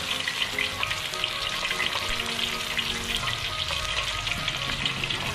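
Battered alligator gar strips deep-frying in hot oil: a steady, dense crackling sizzle.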